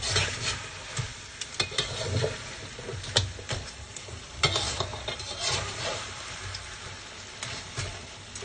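A plastic spatula scraping and knocking irregularly against a metal wok as crab pieces and chives are tossed in chilli sauce, with the sauce sizzling underneath.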